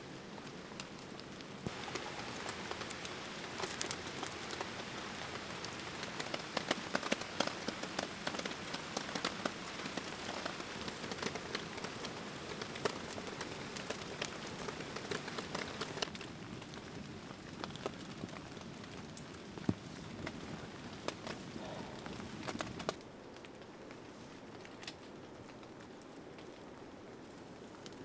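Wood campfire crackling and popping over a steady hiss. About 23 seconds in it drops suddenly to a quieter, even hiss.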